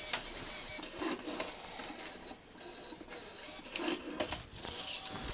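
Small receipt printer running in short stretches, with paper being handled and scattered clicks.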